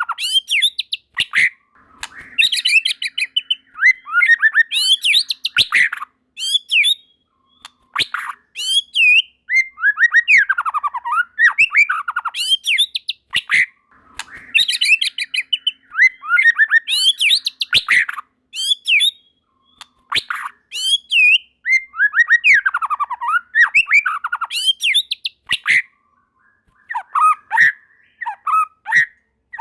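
White-rumped shama (murai batu) singing energetically: quick runs of varied whistles, trills and sharp clicks in phrases a few seconds long, with short pauses between them and a longer pause near the end.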